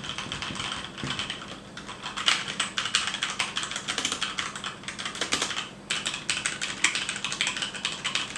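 Fast typing on a HyperX Alloy Origins mechanical keyboard with HyperX Red linear switches: a dense run of keystrokes with a couple of brief pauses. The switches are quiet, with little click.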